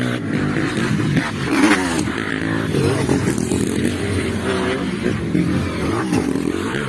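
Dirt bike engines revving on a motocross track, their pitch rising and falling over and over as the riders open and close the throttle.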